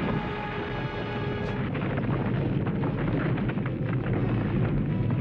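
Cartoon sound effect of a blast on a mountainside, followed by a long rumbling of sliding snow, with dramatic music over it.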